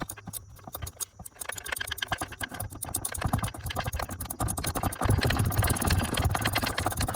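Ratchet wrench clicking rapidly as a 1/2-inch nut is backed off the transfer case shifter linkage, the clicks coming faster and getting louder about five seconds in.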